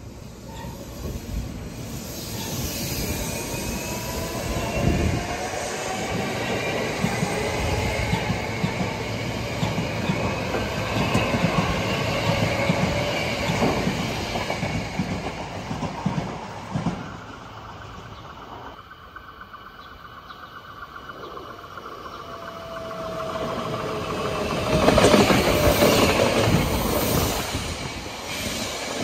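Hankyu electric train passing, its motors whining in slowly gliding tones over the running noise of the wheels on the rails. The sound dies down after about seventeen seconds, then a second train passes near the end, the loudest part, with a steady whine.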